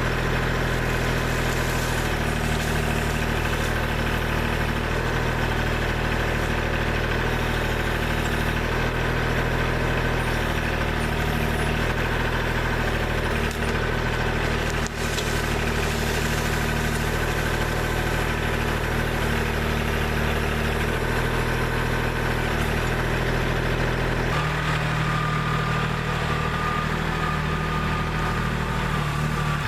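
Kubota backhoe's diesel engine running steadily, its tone changing near the end as a higher whine comes in.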